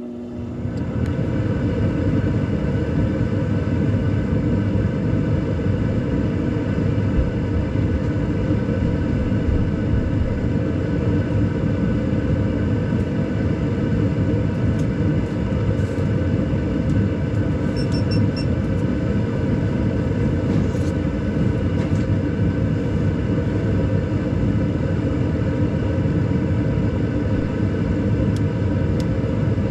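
A 2012 Bryant Legacy Line gas furnace starting up and running: a steady rush of moving air with a constant motor hum. It comes in just at the start and reaches full level about a second in.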